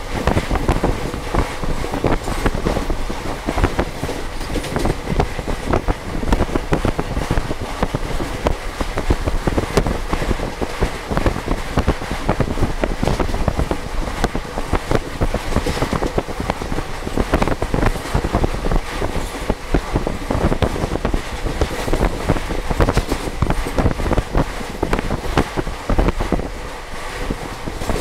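Passenger train coach running at speed, heard through an open window: a steady rush of noise with a dense, irregular clatter of the wheels over the rails.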